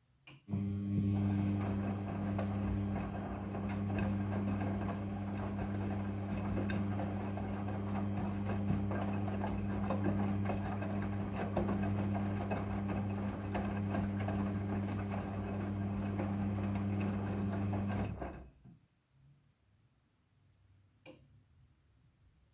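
Midea front-loading washing machine running with a steady electric hum, which starts about half a second in and cuts off abruptly after about eighteen seconds. A single click follows a few seconds later.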